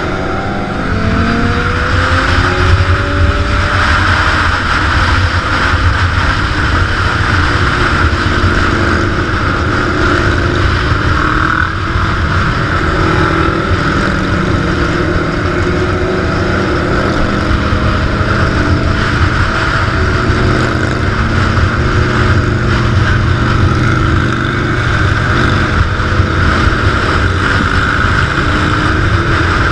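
Big motorcycle engine running under way. Its pitch rises as it accelerates in the first few seconds, then holds fairly steady over a constant rushing noise.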